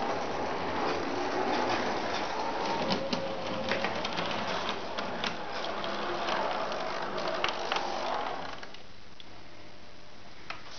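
Model Melbourne W-class tram running on its layout track: a small electric motor whirring with scattered clicks from the wheels and track, stopping about eight and a half seconds in.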